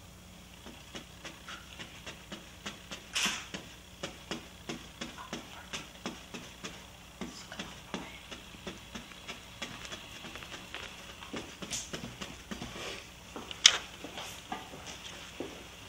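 Paintbrush dabbing thick white paint onto a stretched canvas: a run of soft, irregular taps, a few a second, with a louder knock about three seconds in and the sharpest one near the end.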